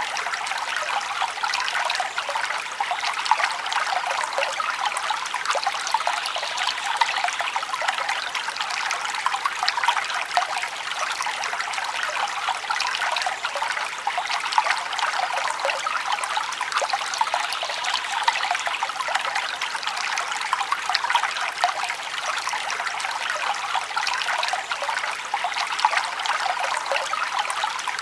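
Forest stream flowing and trickling over stones, a steady babbling rush of water with many small splashes and gurgles.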